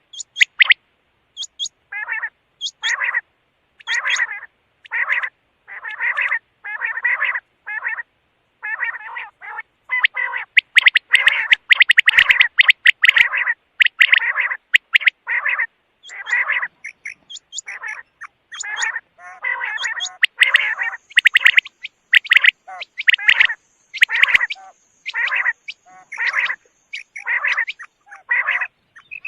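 Quail (batair) calling over and over, short raspy calls about once a second, crowding closer together for a few seconds in the middle.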